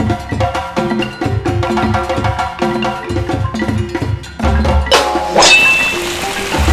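Upbeat background music with wood-block and mallet percussion over a steady beat. About five seconds in, the beat gives way to a hissing sweep effect with a falling whistle.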